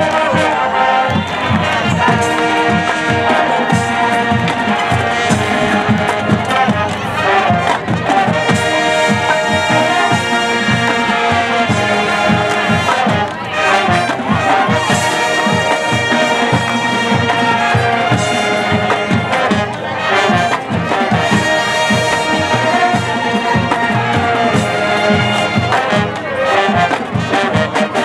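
Marching band playing a brass-led passage. Brass and saxophones sound sustained chords over a steady beat from the percussion.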